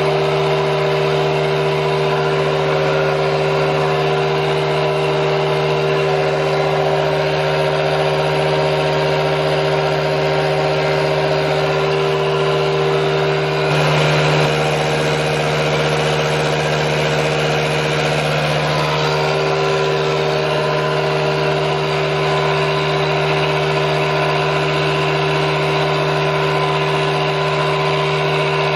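Milling machine running steadily as its cutter trims the edge of a plate at a 2 mm depth of cut: a steady mechanical hum with a few fixed tones, briefly louder about fourteen seconds in.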